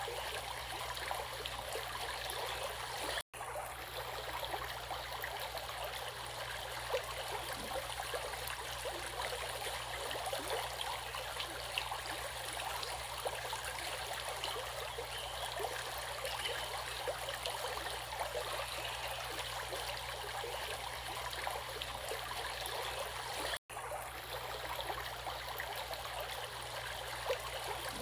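Water flowing in a stream, a steady babbling rush with small splashy flickers. The sound cuts out for an instant twice, once a few seconds in and once near the end.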